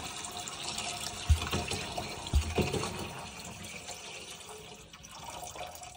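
Water pouring from a plastic gallon jug through the filler opening into a hydroponic garden's reservoir, splashing steadily and growing quieter toward the end. Two low thumps come a little over a second apart.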